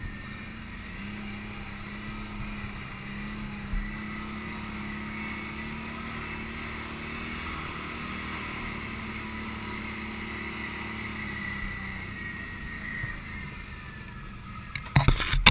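Can-Am Outlander ATV engine running steadily as the quad rides along a trail, easing off slightly near the end. A few loud sharp knocks come in the last half-second.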